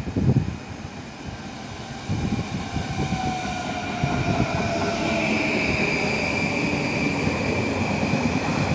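PKP Intercity ED160 (Stadler FLIRT) electric multiple unit pulling in along the platform, its running rumble growing louder as it nears. A faint whine slides down in pitch, and from about halfway a high steady squeal joins it.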